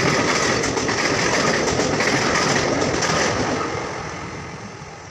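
Express train coaches running past at speed on the rails, with a steady rush of wheel and rail noise. The sound fades away over the last second and a half as the final coach draws off.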